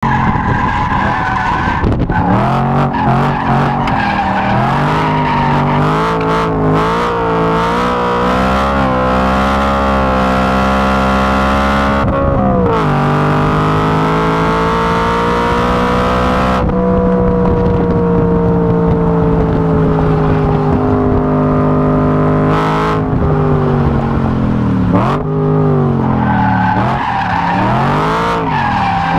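BMW E92 M3's V8 engine driven hard on track, revs rising and falling through the corners. The pitch climbs steadily and drops sharply at gear changes about twelve and seventeen seconds in, sinks slowly for several seconds after, then dips and rises several times in quick succession near the end.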